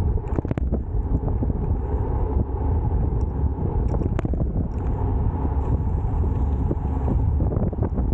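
Wind buffeting a bike-mounted camera's microphone on a fast road-bike descent, a steady low rumble mixed with tyre noise on tarmac, broken by a few sharp clicks, one about four seconds in.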